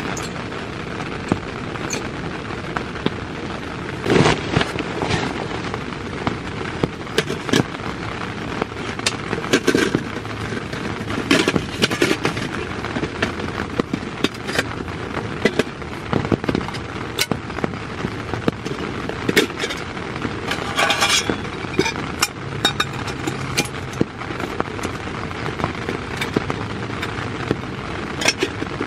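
Heavy rain falling steadily on a tent, with many irregular louder drops popping and tapping on the fabric.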